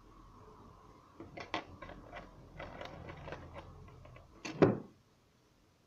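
Small clicks and taps of steel tweezers and fingers working on a watch movement in its metal holder while the gear train is fitted, with one much louder knock a little before the end.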